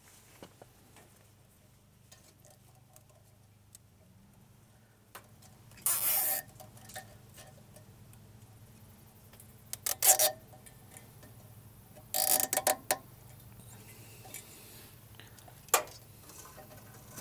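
Plastic zip ties being cinched tight around a copper refrigerant tube: short bursts of rapid ratcheting clicks, about three times, then a single sharp click near the end.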